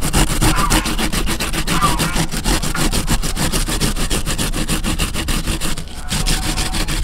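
Arrowroot tubers being grated by hand on a grater: fast, steady back-and-forth scraping strokes, several a second, as the tubers are shredded fine for starch.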